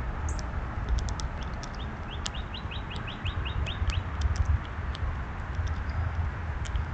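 A small songbird singing a quick run of about a dozen short rising notes, lasting about two seconds, over scattered sharp ticks and a steady low rumble.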